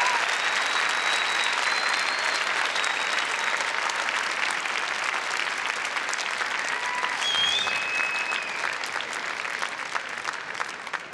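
Arena audience applauding. The clapping slowly dies down into scattered separate claps near the end.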